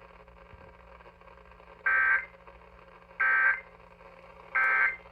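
Emergency Alert System end-of-message data bursts on a radio broadcast: three short bursts of digital data tone about 1.3 seconds apart, signalling the end of the alert. A faint low hum runs underneath.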